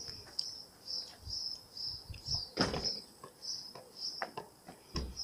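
A few irregular taps of a tennis ball bounced up off racket strings, the loudest about halfway through. Behind them a bird chirps steadily, about two to three short high chirps a second.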